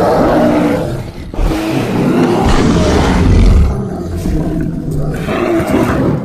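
Deep, rough creature roars in long drawn-out stretches, with a short break just after a second in and a quieter, thinner passage near the end.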